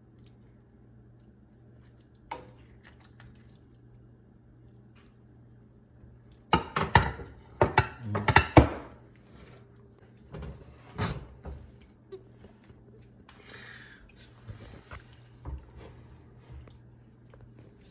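Kitchen utensils knocking and scraping against a pot and dish, with some wet liquid sounds, while steamed fish and its sauce are served; the clatter comes in a burst of sharp knocks a third of the way in, then a few lighter knocks. A faint low hum runs underneath.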